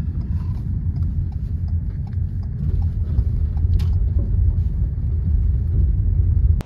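Car tyres rolling slowly over a gravel road, heard from inside the cabin: a steady low rumble with scattered small stone pops and crackles.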